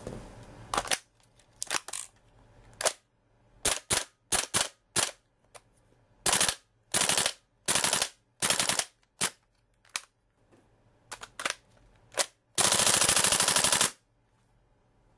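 WE G39 (G36) gas blowback airsoft rifle firing, its bolt slamming back and forth with each shot: a string of single shots, then several short bursts, and near the end one long full-auto burst of over a second. This is a test fire showing the trigger group cycling properly after repair and reassembly.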